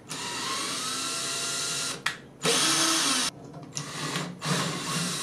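Cordless drill driving a tap into the pre-drilled holes of a stainless steel band, the motor whining in several separate runs with short stops between them. Its pitch rises briefly just after the start.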